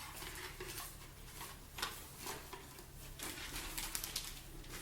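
Rustling and light handling knocks of merchandise and packing material being lifted out of a cardboard box, in short irregular strokes over a faint low hum.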